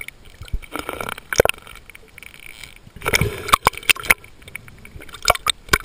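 Underwater sound of a scuba diver's exhaled bubbles gurgling in bursts, with many sharp clicks in between.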